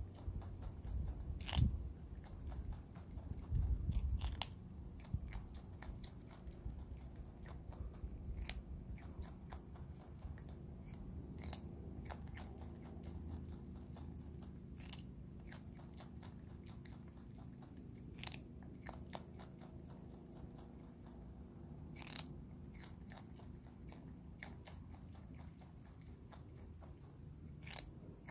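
Brushtail possum biting and chewing a raw carrot held in its paws: irregular sharp crunches throughout, with a couple of louder bumps in the first five seconds.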